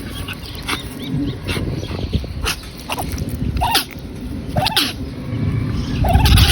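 Pomeranian sneezing over and over, a string of short sharp sneezes about once a second, several with a nasal honk that sounds like a duck's quack.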